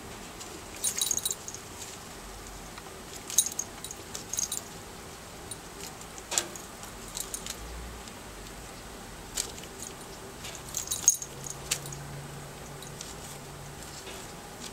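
Short bursts of rustling and light clicking, several times, as a cat paws at a dangled string among potted plants, shaking leaves and stems and tapping the pots.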